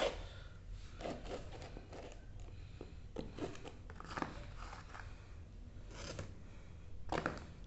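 Hands handling and working open a smartphone's retail box and its packaging: scattered short rustles, scrapes and clicks, about half a dozen over several seconds.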